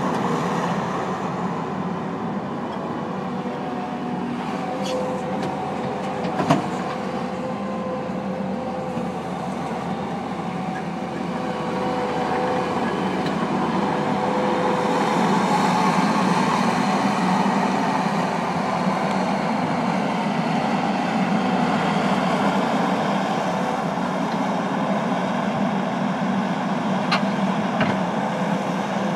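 Gehl CTL70 compact track loader's 81-horsepower turbo diesel engine running steadily while the machine is driven and worked, getting somewhat louder about halfway through. A single sharp clank sounds about six seconds in.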